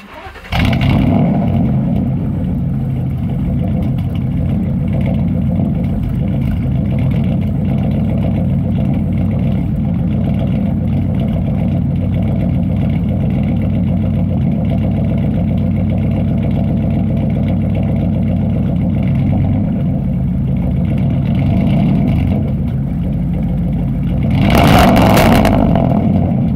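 Ford F-150 pickup's engine idling, heard at the tailpipe. The exhaust note cuts in suddenly, runs steadily, and swells once in a short rev near the end.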